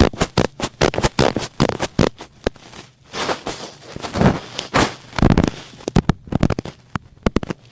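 Thick cotton swab worked against the microphone in ASMR ear cleaning: fast, irregular crackling and scratching, with a few softer, longer swishing strokes in the middle.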